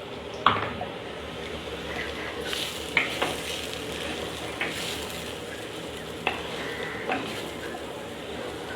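A spoon stirring raw banana and grated coconut frying in a clay pot, over a steady low sizzle. The spoon scrapes and knocks against the pot now and then, about six sharp clicks in all.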